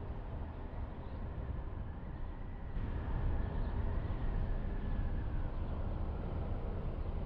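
Car driving slowly on a paved street: steady tyre and engine noise, strongest at the bottom end, with a faint high whine that sinks a little and fades a few seconds in.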